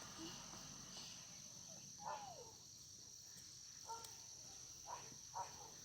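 Faint, steady, high-pitched chirring of crickets, with a few brief faint voices about two, four and five seconds in.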